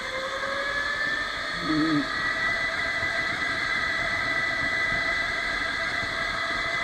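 Electric go-kart motor whining under way, its pitch rising a little over the first two seconds and then holding steady, over tyre and track noise.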